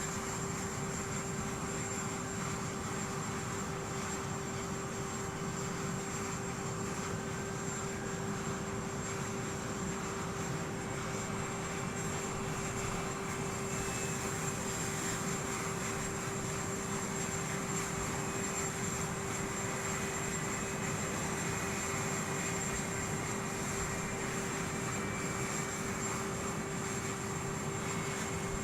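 Aircraft engines running steadily: an even drone with a constant hum and a thin high whine that hold unchanged throughout.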